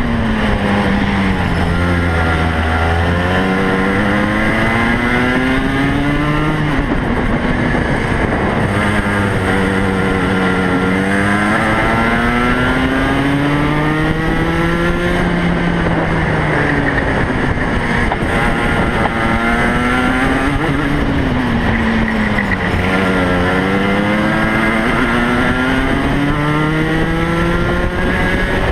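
Racing kart engine at full race pace, heard onboard. Its pitch climbs over several seconds along each straight, then drops quickly as the driver lifts for the corners, about four times.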